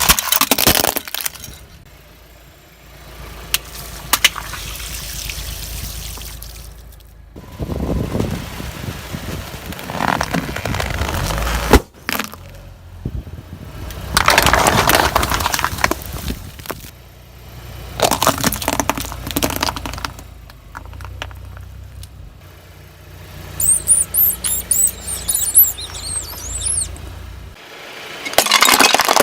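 A car's tyres rolling slowly over and crushing crunchy and soft objects: repeated spells of crunching and cracking over the car's low-running engine, with one sharp crack about twelve seconds in and a high squeaking late on. The engine hum stops shortly before the end.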